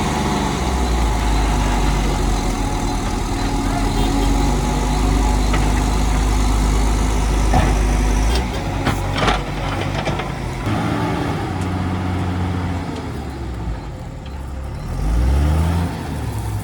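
Heavy diesel engine running hard while pulling the truck out of the mud. Its strong low drone drops away about eight seconds in, and the engine revs up again near the end.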